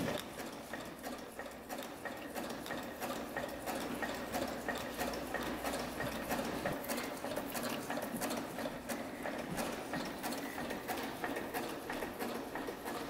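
Electric sewing machine stitching through sheets of printed paper: a steady, rapid ticking of the needle over the hum of the machine.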